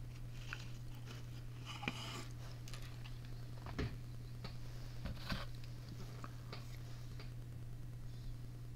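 Scattered small clicks and scrapes of a hand tool working on the tractor's hydraulic pump fittings, over a steady low hum.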